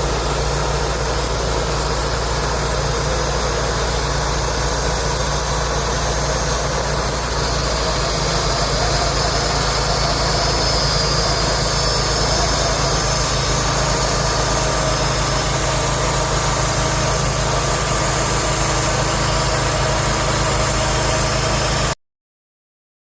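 Wood-Mizer LT35 bandsaw sawmill's engine running steadily, with a high hiss over it. It cuts off abruptly about a second before the end.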